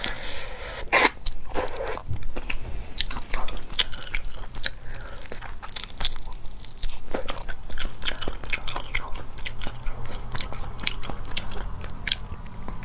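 Close-up chewing and biting of spicy crayfish tails eaten by hand from a jar: a steady, irregular run of small crunches and wet mouth clicks.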